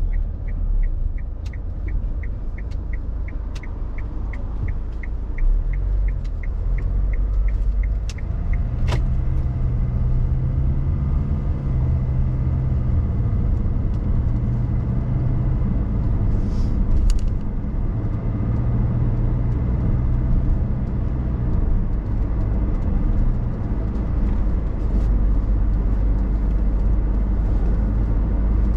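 A moving car's engine and road noise as a steady low rumble. For about the first eight seconds a rapid run of short high-pitched beeps sounds, about three a second, then stops.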